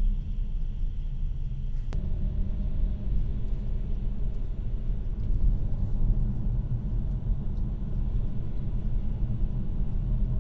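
Car driving, its engine and tyre noise a steady low rumble heard from inside the cabin, with a single sharp click about two seconds in.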